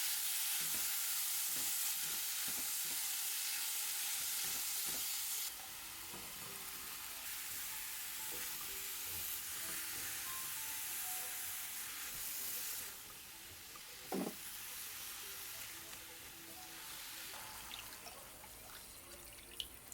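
Food sizzling as it fries in a pot or pan, in three stretches that each get quieter, with one sharp knock about two-thirds of the way in.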